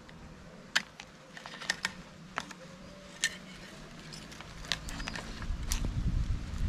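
Metal tongs clicking and scraping against grilled lobster shells and a metal tray as the lobsters are turned over, a sharp click about once a second. A low rumble comes in near the end.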